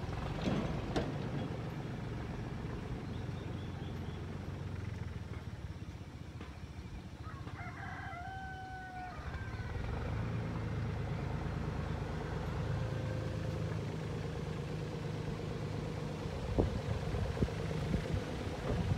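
Diesel engines of a JCB backhoe loader and a tractor running, getting louder about ten seconds in. A rooster crows once about eight seconds in, and a few sharp knocks come near the end.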